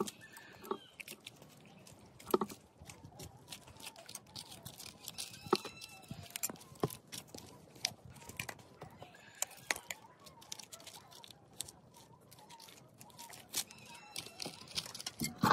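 Irregular light clicks and crackles of banana leaves and food being handled.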